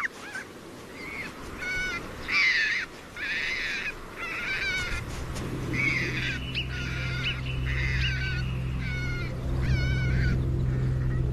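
Alpine marmots calling as two of them wrestle: a run of short, pitched calls, about one a second, each bending up and down in pitch. A low steady drone comes in about halfway.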